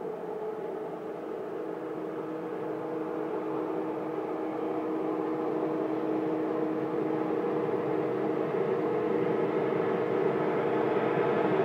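ICE 1 high-speed train (class 401 power car) pulling into the platform: a steady hum with two steady tones, growing louder as it approaches.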